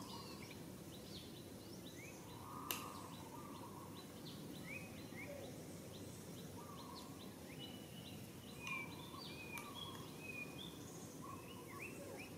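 Outdoor ambience of many short, high bird chirps over a steady low background noise, with one sharp click about three seconds in.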